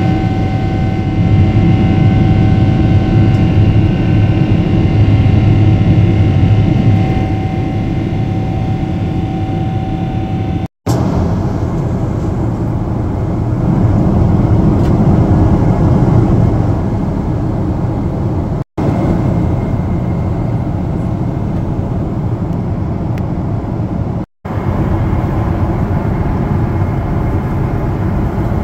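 Cabin noise of a Boeing 777-300ER climbing out: the steady drone of its GE90-115B engines and air rush, with a faint steady whine over it for the first ten seconds or so. The sound breaks off for an instant three times.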